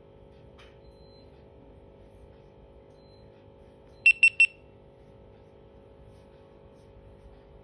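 GoPro Hero 9 action camera powering on: three quick high-pitched beeps about four seconds in.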